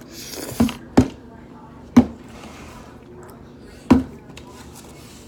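Four sharp knocks on a hard surface, unevenly spaced, after a brief hiss at the start.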